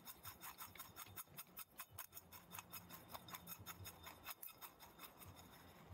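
Faint, rapid ticking of coarse spice mix (coarse sea salt and cracked pepper) rattling against a stainless-steel bowl as it is shaken to mix, about eight to ten small ticks a second.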